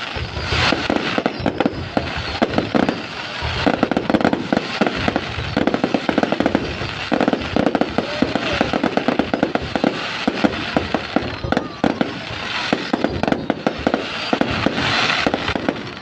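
Fireworks display: a dense, unbroken run of sharp bangs and crackling from aerial shells bursting overhead.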